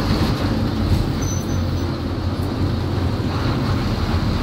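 Intercity bus driving at speed, heard from inside the cabin: a steady engine drone with road and wind noise.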